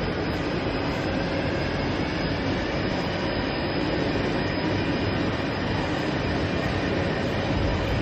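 Steady, unbroken din of automated belt grinding and polishing machines running in robot cells, the machines working door-handle workpieces.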